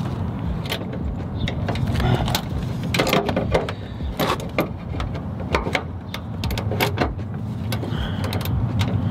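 Irregular clicks and knocks of a hand ratchet with a 10 mm socket working a bolt at a car's front bumper and fender liner, over a steady low hum.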